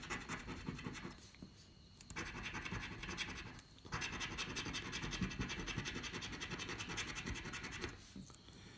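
Rapid scratching as the latex coating is rubbed off the number panels of a £2 'Win All' scratchcard, in three spells broken by short pauses about a second and a half in and just before four seconds, tailing off near the end.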